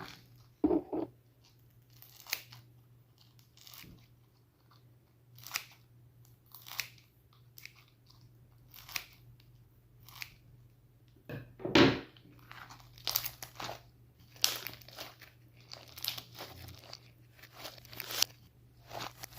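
Slime being squeezed and poked, played in reverse: irregular crunching and crackling pops, with a few louder ones about a second in and again around twelve seconds in.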